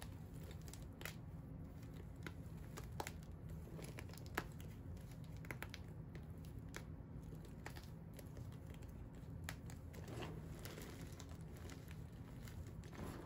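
Hands crushing and squeezing broken chunks and powder of dried dyed blocks: scattered dry crackles and crisp crunches, with a denser stretch of crunching about ten seconds in and again near the end.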